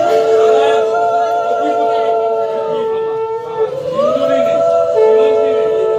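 Several conch shells (shankha) blown together in two long held blasts. Each blast starts with an upward swoop, and the players take a new breath about three and a half seconds in. The conches are blown to mark the sindoor daan of a Bengali Hindu wedding.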